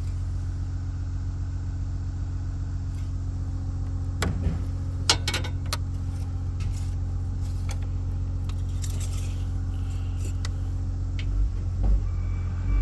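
2003 Jeep Liberty's 3.7-litre V6 idling steadily, with a few light clicks about four to five seconds in and a couple of low bumps near the end.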